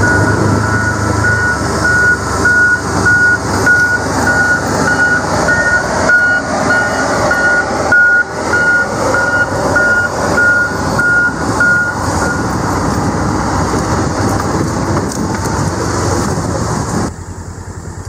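Farm vehicle driving over rough pasture, with loud, uneven engine and ride noise. An electronic warning beep repeats about twice a second for the first twelve seconds. About a second before the end the noise drops to a steadier, quieter running as the vehicle stops.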